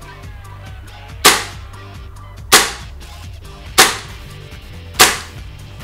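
Custom 10/22 airsoft gas blowback rifle running on green gas, fired four single shots about a second and a quarter apart, each a sharp report.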